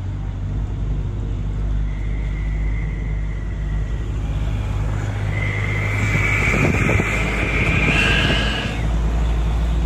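Steady low rumble of a car driving along a highway, heard from inside the cabin. A thin high whine runs over it, rising slightly and dying away a little after two-thirds of the way through.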